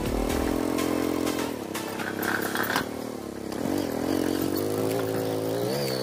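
Small motorcycle engine running while riding a rough dirt track, its pitch rising and falling with the throttle, easing off for a moment about two seconds in before picking up again.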